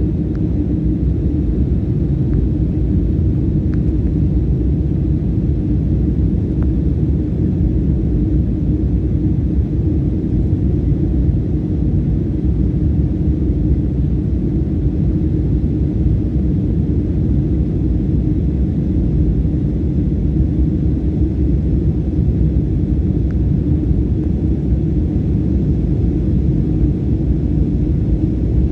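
Jet airliner cabin noise in flight: a steady low roar of engines and airflow, heard inside the cabin, with a steady hum running through it.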